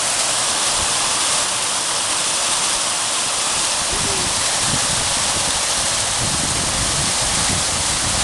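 Runoff water rushing through erosion gullies beside a road, a steady, even rush, as the flow eats away at the road's sand foundation.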